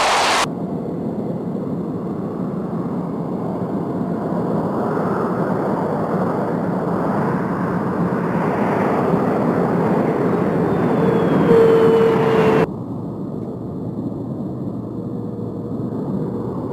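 F-16 fighter jet's single turbofan engine, a steady rushing jet noise. The sound changes abruptly about half a second in and again near 13 seconds, where separate recordings are joined.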